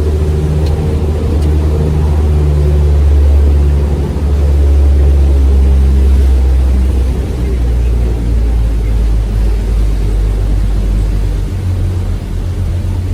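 Tour boat's engine running, heard on board: a loud, steady low drone with a broad hiss over it. The drone dips briefly about four seconds in and eases slightly near the end.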